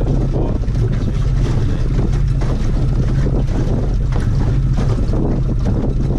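Boat's outboard motor running steadily at trolling speed, a constant low hum, with wind buffeting the microphone.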